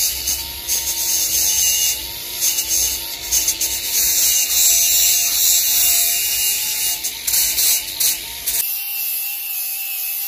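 Aerosol spray-paint can hissing in repeated bursts as red paint is sprayed onto a small part. About eight and a half seconds in, the sound changes to a thinner, steadier hiss.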